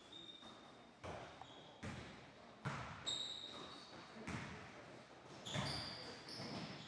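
A basketball dribbled and bounced on a hardwood gym floor, with irregular bounces that echo in the large hall. Sneakers squeak on the wood a little after the middle and again near the end.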